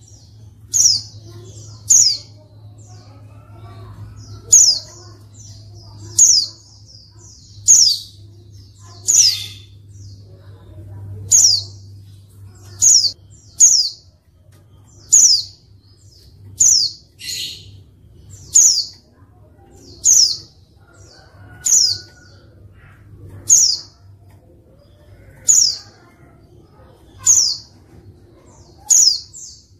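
Female white-eye (pleci) giving short, sharp high calls, each a quick falling sweep, repeated about every one to two seconds. This is the female call that keepers play to provoke lazy male white-eyes into answering and singing.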